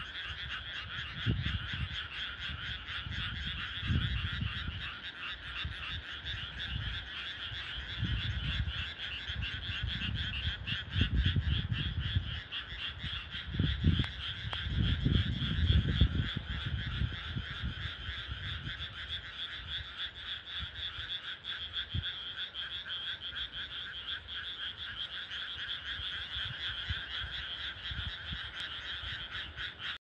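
A dense chorus of many frogs croaking continuously, a rapid steady pulsing that never lets up. Low rumbles come and go underneath in the first half, loudest around the middle.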